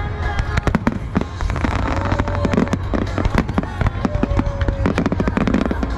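Aerial fireworks display: many overlapping bangs and crackles in rapid, irregular succession over a deep rumble.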